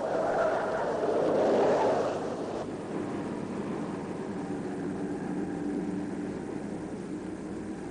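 Rolls-Royce convertible driving past with a loud rush of engine and road noise that cuts off about two and a half seconds in. Then a quieter, steady car engine hum as it drives on.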